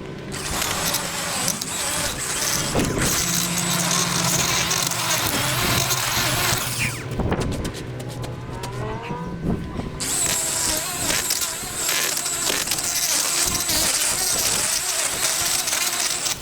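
Small petrol engine of a garden power tool running hard with a hissing cutting noise, in two long stretches with a quieter lull of about three seconds in the middle.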